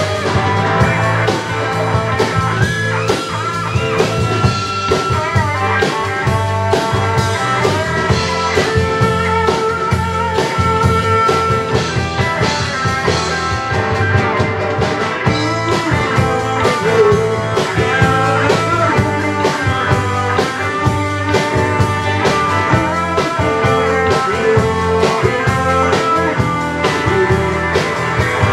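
Live rock band playing an instrumental passage: an electric guitar lead with long, bending notes over rhythm guitar, bass guitar and a drum kit.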